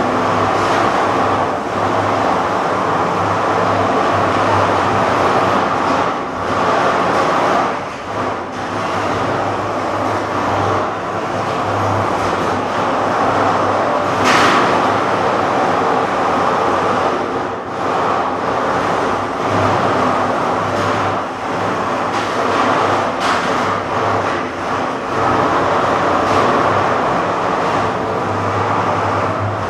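Combat robots running in a walled arena: a steady mechanical whir from their motors and weapons, broken by sharp metal bangs of hits, the loudest about fourteen seconds in.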